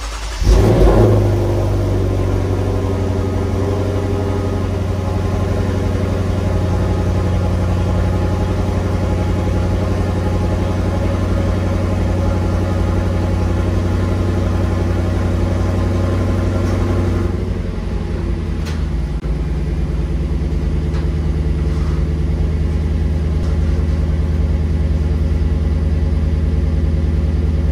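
Lexus GS F's 5.0-litre V8 cold-starting through its stock mufflers. It catches with a brief flare and settles into a steady, quiet high idle, which drops to a lower idle a little past halfway through.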